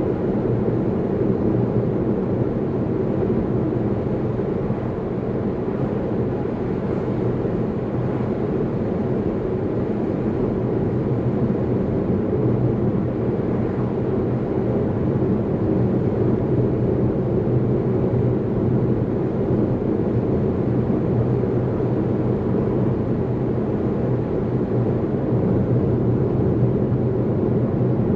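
Steady tyre and engine noise inside a moving car's cabin, a low even rumble that holds unchanged.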